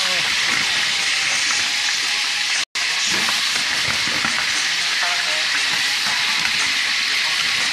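Squid rings sizzling as they fry in hot oil in a frying pan: a steady, loud hiss. The sound cuts out for an instant about two and a half seconds in.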